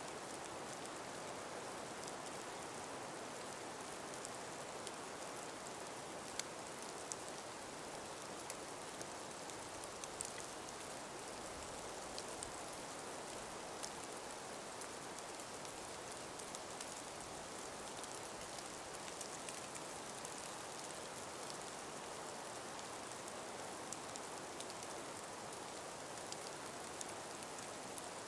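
Calm winter breeze through an ice- and snow-covered forest: a faint, steady rush, with scattered small ticks throughout.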